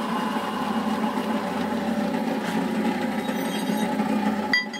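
Vertical milling machine's spindle motor running steadily with the auto feed stopped, then a click about four and a half seconds in as it is switched off and the running sound drops away.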